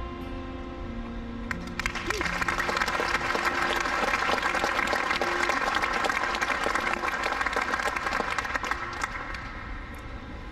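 Audience applauding, starting about two seconds in and fading near the end.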